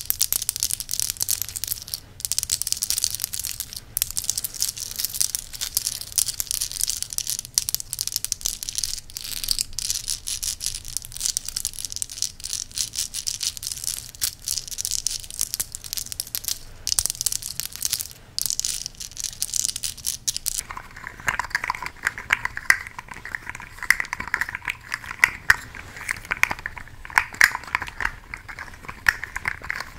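A necklace handled close to the microphone for ASMR: a continuous light rattling and clicking of its beads or links. About two-thirds of the way in it stops, and a different object takes over with a denser, lower clicking.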